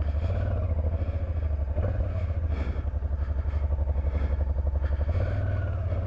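Honda Transalp 700's V-twin engine running steadily with an even low throb and no revving.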